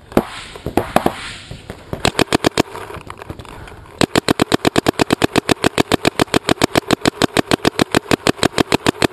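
Smart Parts Shocker RSX paintball marker firing: a few single shots, a quick string of about five just after two seconds, then a rapid unbroken stream of about nine shots a second from about four seconds on.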